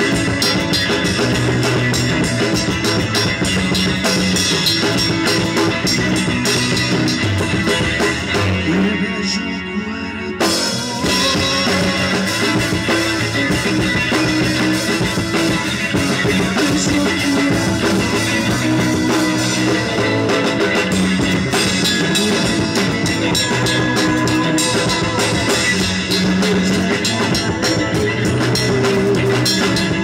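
Live rock band playing: electric guitars, bass guitar and drum kit. About eight seconds in the band drops back briefly, then comes back in full about ten and a half seconds in.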